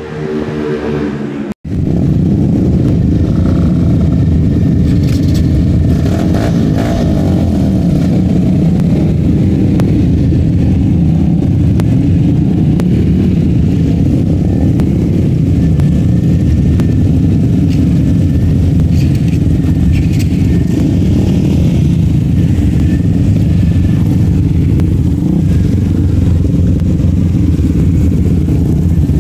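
Racing motorcycle running at speed on a track, its engine nearly buried under a steady, loud rumble of wind noise on the microphone. A short stretch of music cuts off abruptly about a second and a half in.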